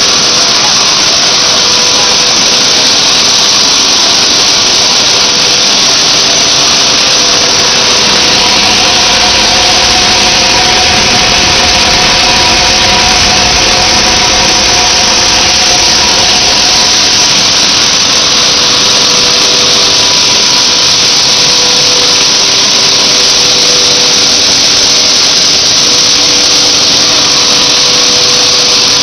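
PET bottle recycling line machinery running, its centrifugal blower and air ducting giving a loud, steady rush of air with a few faint steady hums beneath.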